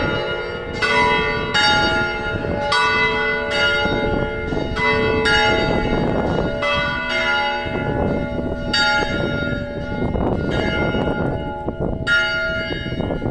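Six church bells swung full circle by automatic motors (Spanish volteo), striking one after another in an irregular, overlapping peal, about one to two strokes a second, each stroke leaving a long ringing tone.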